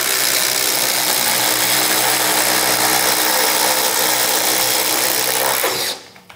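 Two cordless impact drivers, a Makita 40V XGT and a DeWalt 20V MAX with a PowerStack battery, running together at full speed as they bore 1-inch self-feeding spade bits through a 2x4. The loud, steady noise stops about six seconds in as the drilling ends.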